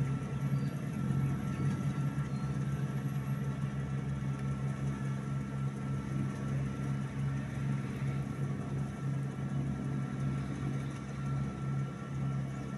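Riding rice transplanter's small engine running steadily as it plants seedlings in a flooded paddy, a constant hum with a faint higher whine.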